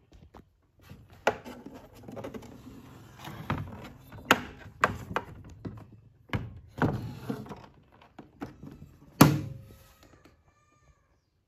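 Handling noise from the plastic case of a Crown CRC 9950 radio cassette player being touched and shifted on a wooden table: a string of knocks and thunks with rubbing in between, the loudest knock about nine seconds in.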